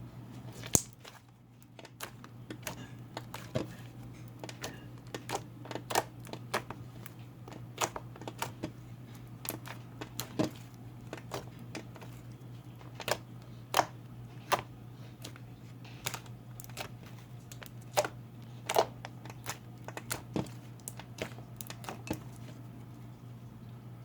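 Homemade slime being squished and poked by hand for ASMR, making irregular sharp clicks and pops.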